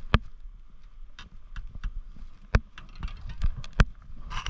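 Irregular sharp knocks and taps, a few of them louder, over a low steady rumble, with a short hiss near the end.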